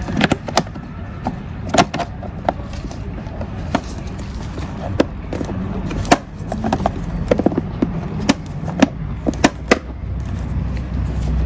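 Irregular plastic clicks and knocks as the air filter cover of a Wen 56235i inverter generator is handled and snapped back into place, over a low steady rumble.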